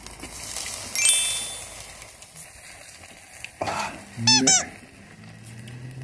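Food sizzling over charcoal on a small grill. A glass rings sharply about a second in, like ice clinking in a glass, and a brief wavering sound rises and falls a few times around four seconds in.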